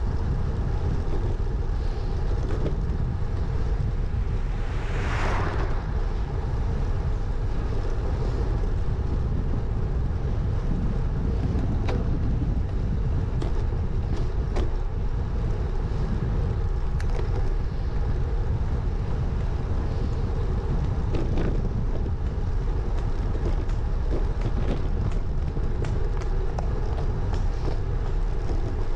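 Wind buffeting the microphone of a GoPro Hero 9 mounted out front on a moving road bike, a steady low rumble, with a brief louder hiss about five seconds in and a few light clicks.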